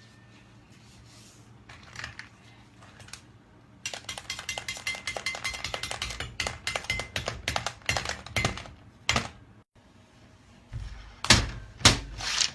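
Hard rock candy being chopped into small pieces with a metal blade on a steel table: a fast run of crisp clicks and snaps, many a second, for several seconds. A few loud knocks follow near the end.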